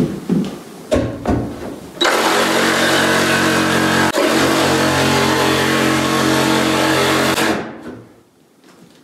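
A power tool's motor sounds in a few short irregular bursts, then runs steadily for about five seconds with one brief dip, and winds down near the end.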